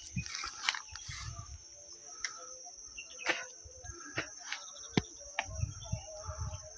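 A steady, high-pitched insect chirring, with faint scattered clicks and knocks.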